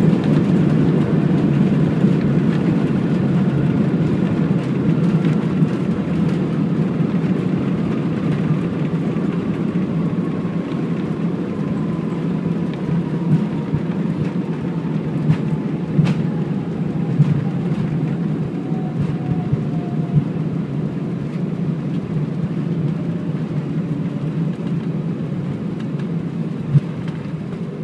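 Airbus A320 jet on its landing rollout, heard inside the cabin: a steady deep rumble that eases slowly as it decelerates. A faint whine falls slowly in pitch, and there are a few short knocks.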